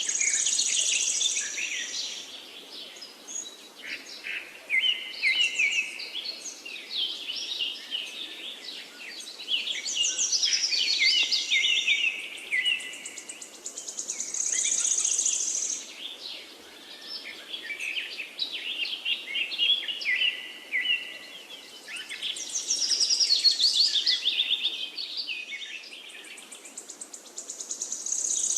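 Forest songbirds singing: a busy mix of chirps and quick trills, with a high, buzzy trill coming back every several seconds, over the faint steady rush of a river.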